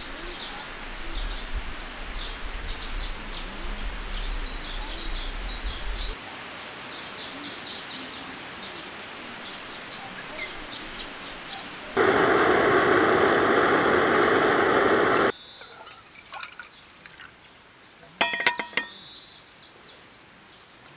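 Small birds chirping and singing in the trees for the first dozen seconds. They are followed by a loud steady rush of noise lasting about three seconds, which stops abruptly, and a short burst of sharp clicks a few seconds later.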